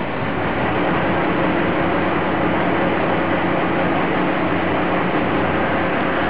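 Small fishing boat's engine running steadily under way, a constant drone with a low, even hum.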